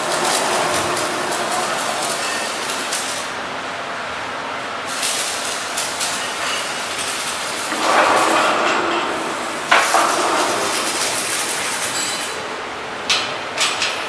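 Steady workshop noise with metal clatter and rolling, and a few sharp knocks, as a large multi-grooved pulley is handled and pushed along the overhead beam of a cable making machine.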